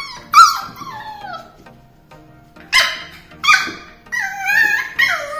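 Beagle puppy crying in its crate: a falling whine at the start, two short sharp yelps about three seconds in, then a drawn-out cry that falls in pitch near the end. The puppy is protesting at being shut in.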